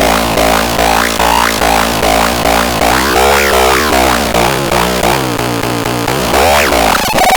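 Electronic music with a heavy bass, a steady beat and synthesizer lines that glide up and down in pitch; near the end it switches to a fast stuttering pattern.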